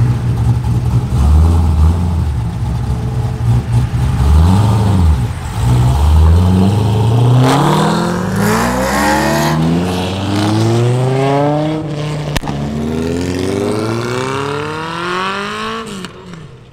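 C6 Corvette Grand Sport's 6.2-litre LS3 V8 rumbling at low speed with one short blip of the throttle. From about six seconds in it accelerates hard, the pitch climbing and dropping back with each upshift through several gears, then fading as the car pulls away near the end.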